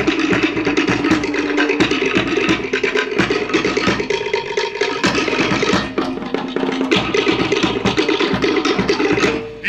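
Cook Islands drum ensemble playing a fast, driving drum-dance rhythm on wooden slit log drums with a skin bass drum underneath, stopping abruptly near the end.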